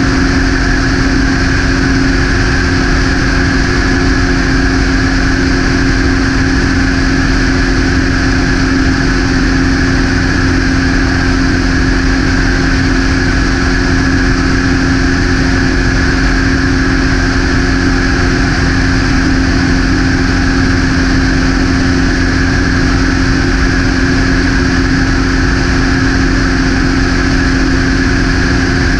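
Light aircraft's propeller engine running steadily in cruise, a constant loud drone with a steady low hum and a higher whine over it.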